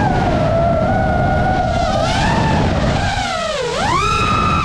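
FPV quadcopter's brushless motors and propellers whining, the pitch wavering with the throttle; the whine drops sharply about three and a half seconds in, then climbs back to a higher steady whine near the end, over a low rushing noise.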